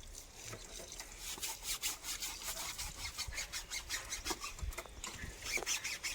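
Rhythmic scrubbing of a motorcycle tyre being washed with shampoo: short hissy strokes, about four or five a second, getting louder near the end.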